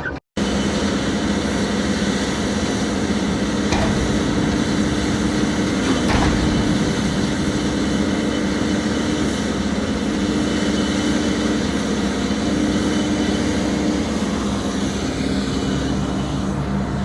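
A heavy machine's engine running steadily at constant speed, with two faint knocks about four and six seconds in.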